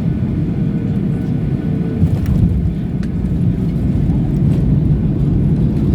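An airliner landing: a steady, loud low rumble, with a few faint clicks over it.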